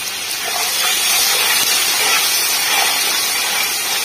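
Hot mustard oil sizzling steadily in a metal pot as cumin seeds, bay leaves, cinnamon stick and dried red chillies fry for a tadka. The sizzle grows louder about a second in.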